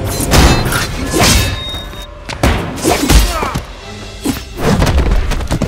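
Dubbed fight sound effects over action music: a fast run of about ten punch and body-hit impacts, some heavy thuds among them, as two fighters trade blows.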